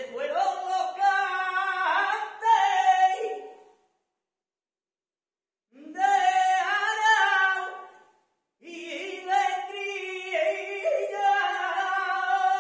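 Male flamenco singer singing unaccompanied in long, ornamented phrases with a wavering pitch, broken by two brief pauses, about four and eight seconds in.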